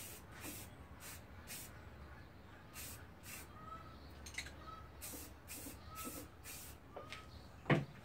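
Aerosol spray can of primer hissing in short bursts, a few bursts every second or two. A single louder knock near the end.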